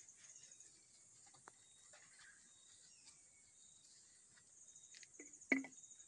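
Quiet outdoor background of crickets chirping in high, evenly pulsed trills, with a few faint clicks and one sharp knock about five and a half seconds in as PVC drain pipe is handled.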